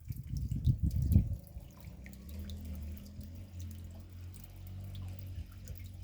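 Raindrops dripping, heard as scattered small taps throughout, over a low rumble that is loudest in the first second and a half and then settles into a steadier low hum.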